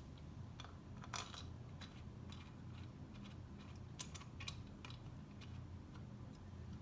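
Scattered light clicks and taps of small engine parts and a gasket being handled and set in place, over a steady low hum.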